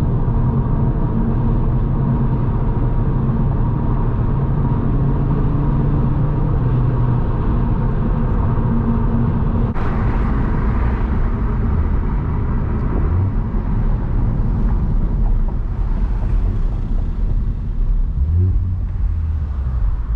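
Audi RS3 8P's five-cylinder engine running under way with road noise, a steady engine note for the first half. A sharp click comes about ten seconds in, after which the engine note shifts and varies, rising briefly near the end.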